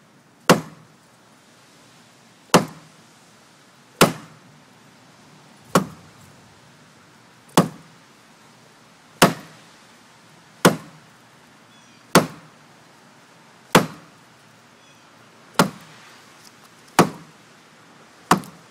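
Shoe heel with a wine bottle's base wedged in it, struck against a wooden post: twelve sharp knocks, about one every one and a half seconds, hammering the cork gradually out of the bottle.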